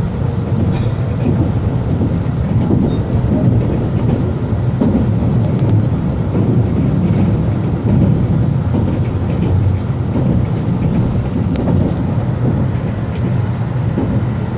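Inside a JR Narita Express E259-series train running at speed: a steady low rumble of wheels on the track, with a few sharp ticks, one about a second in and two near the end.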